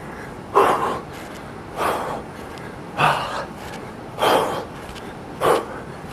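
A man's sharp, forceful exhales, five of them about a second apart, timed with punches thrown during a cardio exercise.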